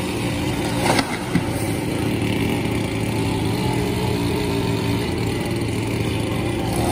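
A small engine drones steadily. About a second in, a short sharp crack and thud, followed by a smaller one, as the sawn-through crown of a large tree breaks away and falls to the ground.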